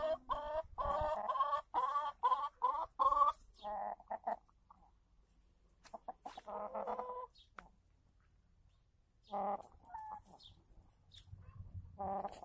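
Domestic hens clucking: a quick run of about eight short clucks in the first few seconds, then a few more scattered calls.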